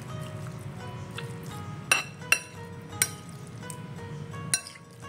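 Metal spoon clinking against a bowl four times while stirring raw chicken pieces into a coarse turmeric spice paste.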